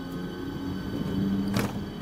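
TCDD E 68000-series electric locomotive passing close by with its passenger coaches, giving a steady low hum. A single sharp clank comes about one and a half seconds in.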